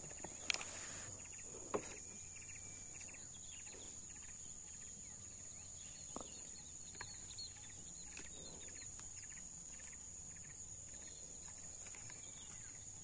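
Steady high-pitched insect drone, crickets or cicadas in the grass, with faint quick chirps repeating through the middle and a few soft clicks near the start.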